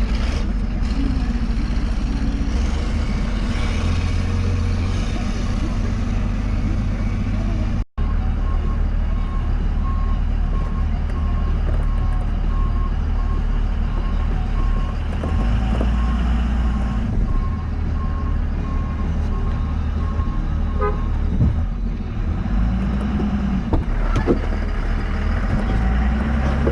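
Truck engine running steadily, cutting out for an instant about eight seconds in, with an evenly repeating beep from then until about twenty-one seconds in.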